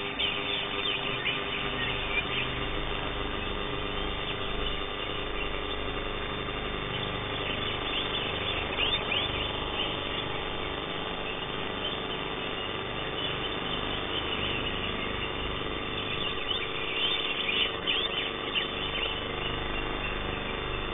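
Green leafbird (cucak ijo) singing in three short bursts of quick, sharp notes, near the start, about eight seconds in and again about seventeen seconds in, over a steady electrical hum.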